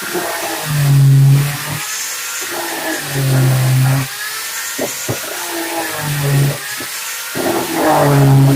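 Hand-held angle grinder running on wood, its motor pitch wavering as it is worked across the surface, with a stronger low hum swelling every two to three seconds.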